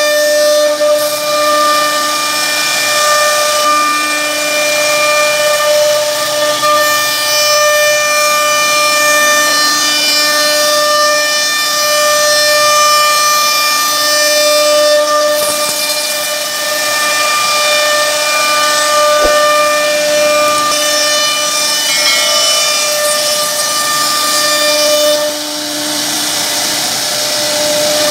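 CNC router spindle running at a constant high speed, a steady high-pitched whine over a hiss, as its carving bit cuts a relief pattern into a wooden board.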